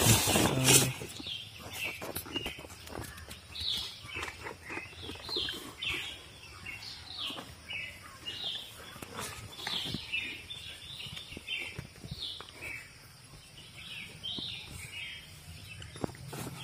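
Small birds chirping over and over: short high chirps, some sliding down in pitch, about one or two a second, with a few faint knocks.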